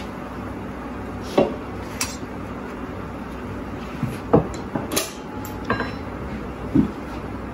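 Stainless-steel kitchenware clinking: a spatula and ladle knocking against a steel plate and bowl, several short separate clinks over a steady low background hum.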